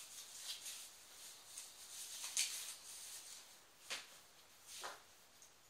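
Faint rustling and scraping of the TV's cardboard box and packing as it is handled, with one sharp knock about four seconds in and a short rustle after it.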